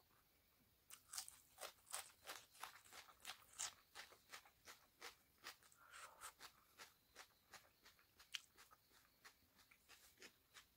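Close-up chewing of a mouthful of pork and rice: wet mouth clicks and smacks at about two or three a second, starting about a second in and growing softer near the end.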